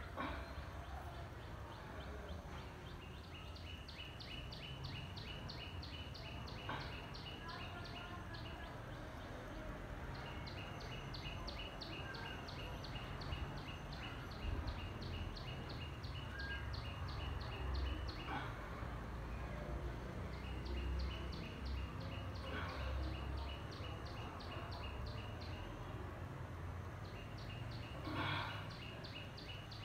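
Animal chirping: fast, evenly spaced high chirps, about four a second, coming in runs several seconds long, over a steady low rumble.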